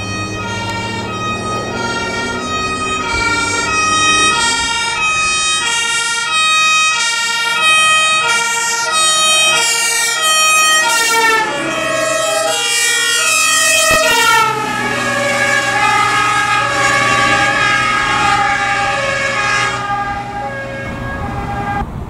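Two-tone sirens of several German fire engines on an emergency run, their alternating two-note call dropping in pitch as each truck passes. Diesel truck engines run underneath.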